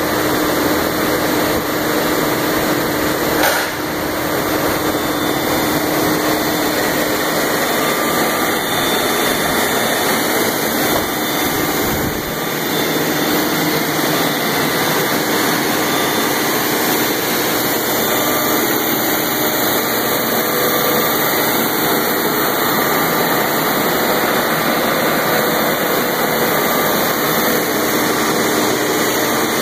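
Large GE DC motor of about 500 hp running steadily on a test stand with a loud, even whir and a faint steady hum. A single click comes about three and a half seconds in, and the low hum drops slightly about twelve seconds in.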